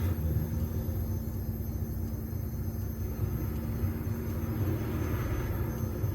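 Chevette's four-cylinder engine, running on Arduino-controlled fuel injection, pulling steadily as the car is driven: an even low rumble with no marked revving.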